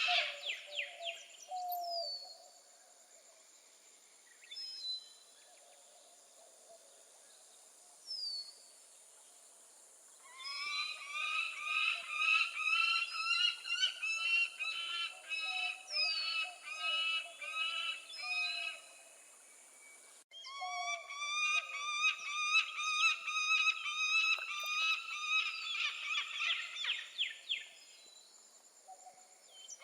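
Peregrine falcon calling in long runs of harsh, repeated notes, a few a second, with a few short faint calls before the first run and a brief break between the runs.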